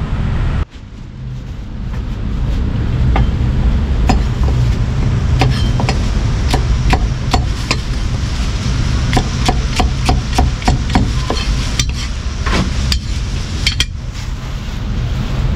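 Meat cleaver chopping roast meat on a thick round wooden chopping block: a run of sharp, irregularly spaced chops.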